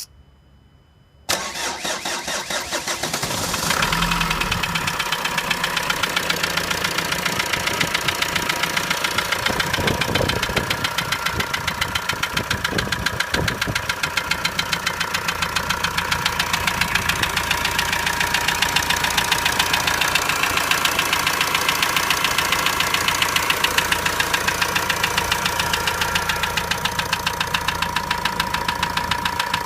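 Renault 2.0 dCi 150 four-cylinder diesel engine starting about a second in, then idling with a steady, evenly pulsing beat. The owner calls the noise abnormal and suspects a connecting rod, a tappet or an injector.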